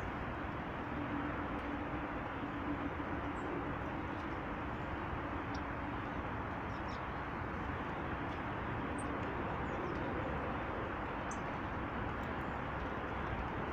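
Small birds giving faint, short, high chirps, scattered every second or two, over a steady rushing background noise with a low hum through the first half.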